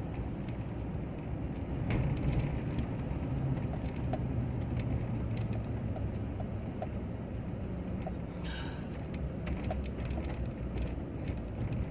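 Steady low rumble of a car's engine and tyres heard inside the cabin while driving, with a brief hiss about eight and a half seconds in and a few faint clicks.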